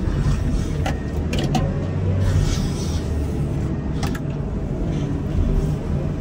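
Wheel loader's diesel engine running steadily, with a few sharp knocks about a second in and again around four seconds.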